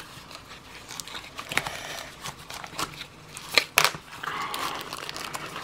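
Cardboard box and paper packaging rustling and crinkling, with scattered light clicks and scrapes as a small part is pushed back into the box. A louder cluster of scrapes comes about three and a half seconds in.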